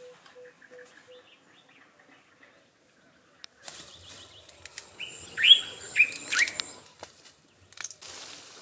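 Birds calling outdoors: a short run of low repeated notes in the first second, then three loud rising chirps about halfway through, over a scratchy rustling noise.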